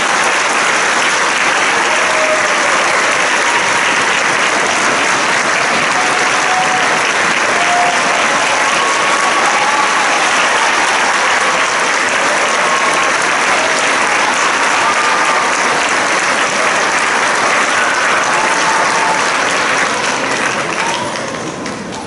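Audience applauding, a dense steady clapping that starts to die away near the end.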